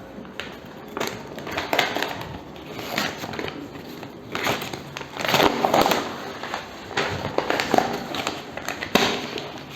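A book parcel being unwrapped by hand: irregular crackling, crinkling and tearing of its packing sheets, louder in clusters around the middle.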